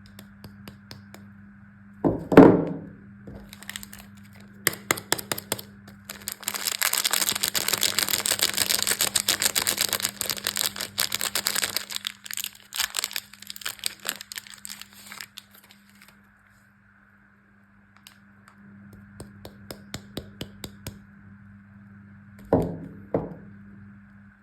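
Soap bars being unwrapped by hand: a sharp knock about two seconds in, then several seconds of wrapper crinkling and tearing with scattered small taps, and two knocks near the end.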